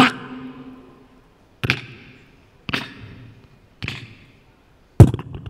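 Human beatboxing through a hall's PA: sparse, sharp percussion hits about a second apart, each ringing out in the hall's echo. The heaviest, bass-deep hit comes near the end.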